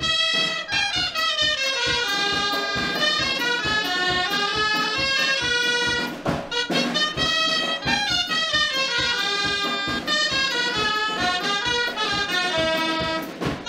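Dulzaina, the Castilian double-reed shawm, playing a fast folk tune in quick rising and falling runs over a steady drum beat. The melody breaks off briefly about six seconds in.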